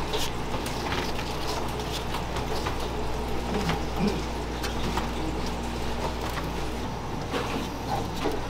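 Food-stall background: a steady low hum with scattered light clicks and taps from buns and utensils being handled.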